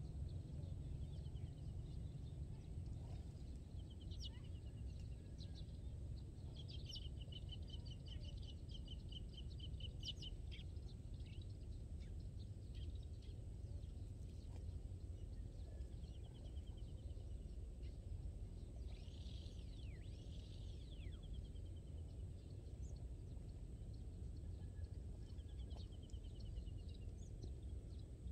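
Wild birds calling in short rapid trills of evenly repeated high notes, several times, the longest running about four seconds a few seconds in. A steady low rumble lies under them.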